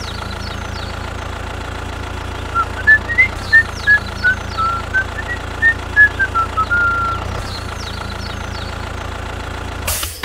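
Steady low hum of a tractor engine running. Between about two and a half and seven seconds in, a run of about a dozen short whistled notes rises and falls like a tune, louder than the engine. A brief burst of noise comes near the end as the sound cuts away.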